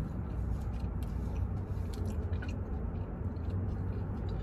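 A person chewing a bite of soft vegetable pakora, wet mouth sounds with small faint clicks and no crunch, over a steady low hum.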